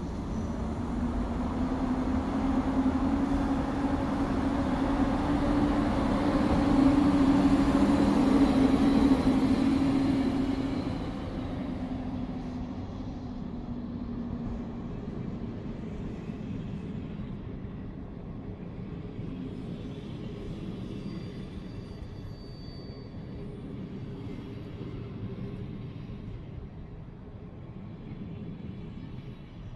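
PKP EP07 electric locomotive and its passenger coaches running past on the station track, growing louder with a steady low hum under the rumble of the wheels. About eleven seconds in, the sound drops sharply to the quieter rumble of a locomotive-hauled train rolling away.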